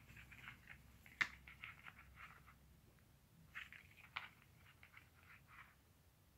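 Faint scratchy rustling in short bursts: a fabric gardening glove being dragged and flicked across a wooden floor. A sharp tap stands out about a second in, and a smaller one just after four seconds.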